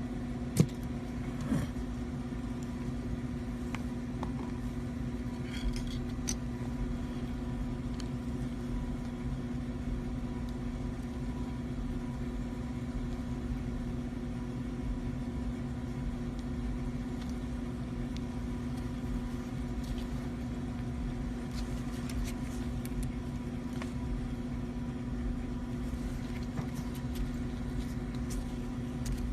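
A steady low machine hum, with a sharp click about half a second in, a softer one about a second later, and a few faint ticks.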